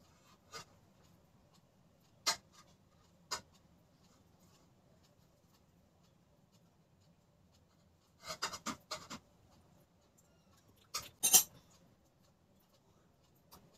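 A small spoon clinking and scraping against a plate as a baby feeds itself, in scattered sharp taps. There is a quick run of taps about eight seconds in, and the loudest pair comes about eleven seconds in.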